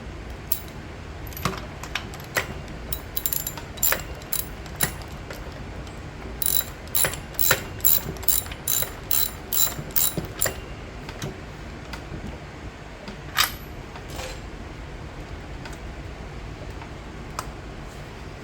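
Ratchet wrench clicking: scattered sharp clicks, then a steady run of about two to three clicks a second between about six and ten seconds in, then a few isolated clicks near the end.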